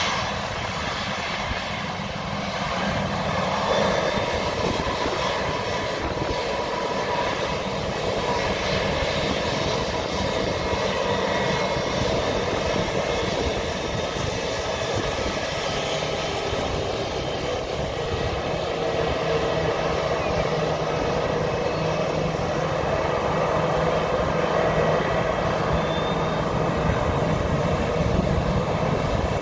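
Jet engines of an Airbus A320-family airliner at low taxi thrust: a steady whine over a broad rumble, growing a little fuller about four seconds in.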